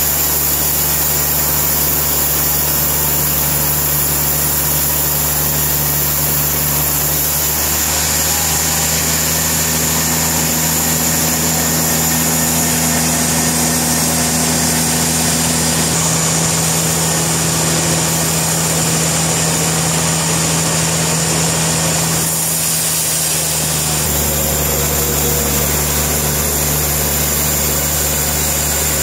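Portable sawmill engine running steadily, its tone shifting a few times and briefly dropping in the low end near the end before picking back up.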